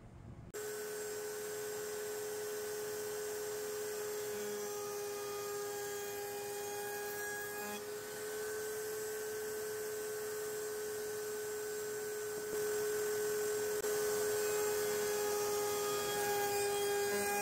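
Wood router running a chamfer bit along the edges of pine framing lumber, a steady high whine that starts about half a second in and gets a little louder about twelve seconds in.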